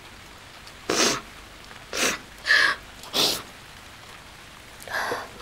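A young woman sniffling tearfully: about five short, breathy sniffs, roughly a second apart.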